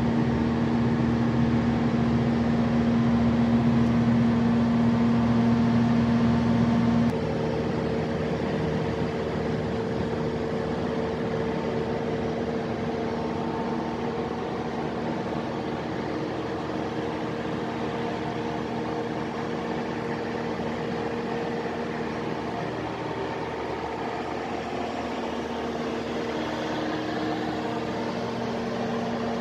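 Mitsubishi diesel engine of a Kohler generator set running steadily, a constant droning hum with its cooling fan. About seven seconds in the sound suddenly gets quieter and its hum changes tone.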